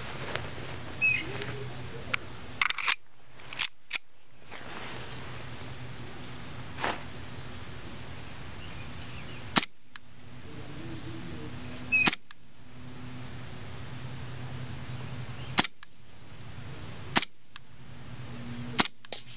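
KWC Taurus PT99 CO2 airsoft pistol firing single shots at an even pace, about eight sharp pops spaced one to four seconds apart, as a magazine is emptied.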